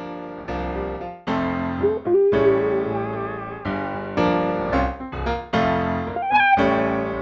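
A song's instrumental intro starting out of silence: electric piano chords struck in a loose rhythm, with a held, wavering melody line over them.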